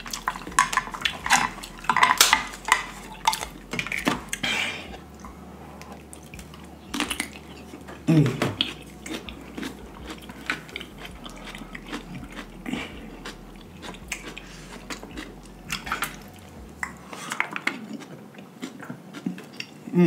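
Utensils clinking and scraping on plates while snow crab meat and rice are picked at and scooped. The clicks come thick in the first few seconds, then sparser. There is a short vocal sound about eight seconds in.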